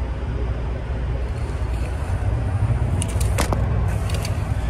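Diesel truck engine idling with a steady low rumble, with a few light metallic clicks and rattles about three seconds in and again near the end.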